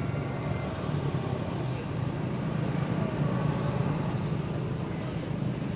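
Steady low hum of a motor vehicle engine running.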